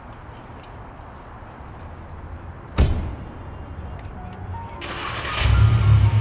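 Tuned 450-whp VW Golf GTI's engine starting: a sudden loud catch about three seconds in that flares and settles, then a rising rev a couple of seconds later into a loud, deep rumble.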